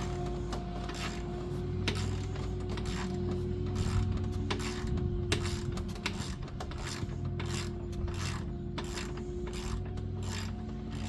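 Hand ratchet clicking in quick runs as a T50 Torx bit backs out a seat hinge screw, over a steady low hum.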